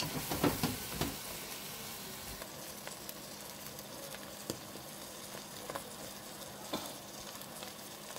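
Oxtail in a pepper seasoning paste sizzling in a pot while it is stirred, with light crackles. A few sharp knocks in the first second.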